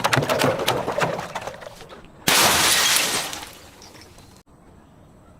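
Glass breaking: a crackly run of crunching and cracking from the start, then a louder, denser shatter at about two seconds that fades out. The sound cuts off suddenly about four and a half seconds in.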